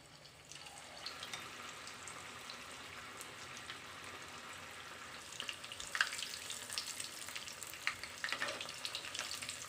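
Batter-coated paneer pieces deep-frying in hot oil in a kadai: a steady sizzle with crackling pops that get busier and sharper about halfway through.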